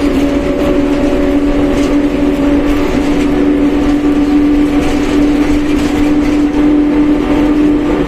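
Mercedes-Benz OF1721 BlueTec 5 bus under way, its differential giving a loud steady whine over the engine and road rumble.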